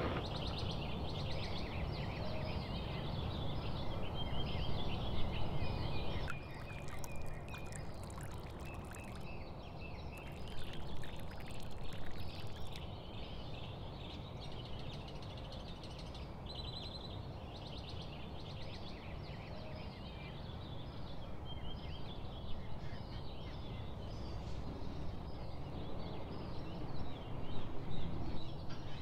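Birds chirping in the background over steady room noise, with a stretch of brief clicks and rattles of kitchen handling about a quarter of the way in.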